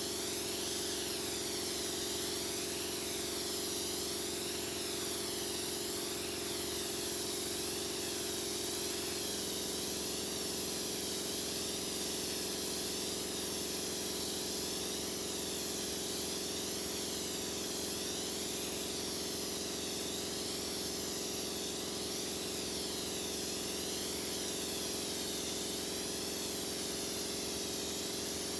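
Spray gun hissing steadily as the finish is sprayed onto a wooden bedug drum, with a steady hum underneath that drops in pitch about nine seconds in.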